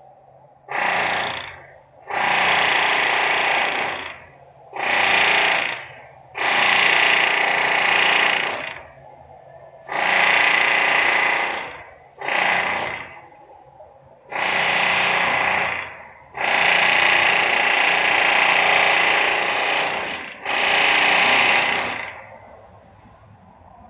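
Loud industrial machinery running in repeated bursts, each lasting from under a second to about four seconds with short gaps between them, about ten times. The noise stops near the end.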